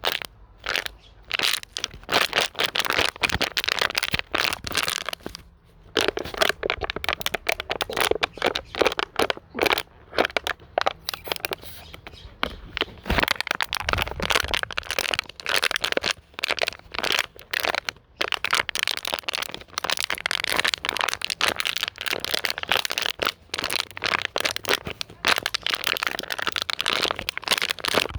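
Plastic bottle being squeezed and crumpled by hand, a continuous irregular crinkling and cracking with short pauses, meant as a soothing noise for fussy or colicky babies.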